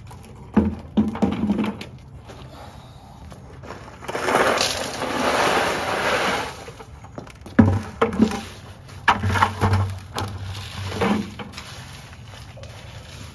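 White river rock poured from a plastic bucket into a garden bed, a rattling rush of stones lasting a couple of seconds, with separate stony knocks before it and a run of rocks clacking together afterwards as they are spread by hand.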